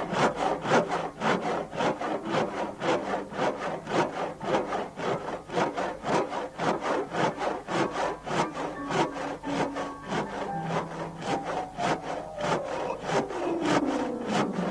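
Hand drill boring into a wooden trunk: a steady rhythmic rasping, about three to four strokes a second. Near the end a lower tone slides down in pitch underneath it.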